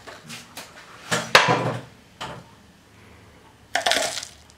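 A metal tablespoon scooping baking soda and tipping it into a plastic cup: several short clinks and scrapes of the spoon, the loudest about a second in, and a short scraping rush of powder into the cup near the end.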